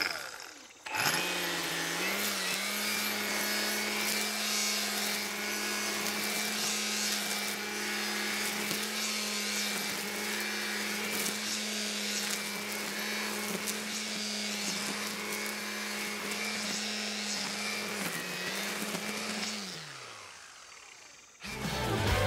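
String trimmer spinning up about a second in and running at a steady high speed as it cuts weeds and grass, then winding down near the end.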